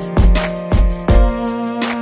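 Background music: held pitched notes over a steady beat of deep drum hits.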